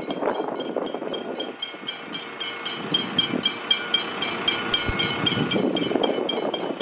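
Level crossing warning bell ringing in rapid, evenly spaced strikes, several a second, while the boom gates are down and a train is due. A low rumble rises and falls underneath.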